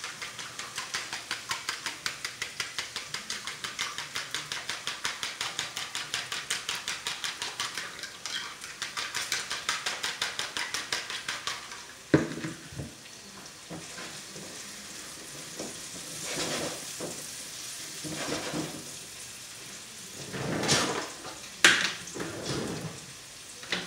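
Eggs being whisked in a glass bowl, a fast even clinking of about five strokes a second, for about twelve seconds. Then a sharp knock, and sautéing vegetables sizzle in a frying pan, with a spatula clattering against the pan near the end.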